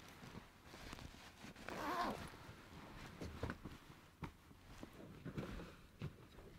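Blankets and bedding rustling as they are shifted around, with a few soft knocks and a brief sliding, zip-like sound about two seconds in.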